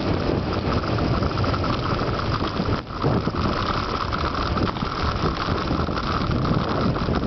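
Wind rushing and buffeting over the microphone as a bicycle descends a mountain road at speed, a steady roar of noise that dips briefly about three seconds in.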